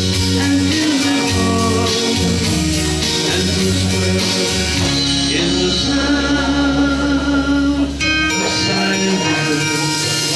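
A man singing a song with guitar accompaniment, performed live.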